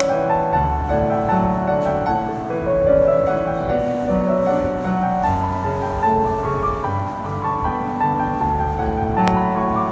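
Background music led by piano, with held notes changing about once a second.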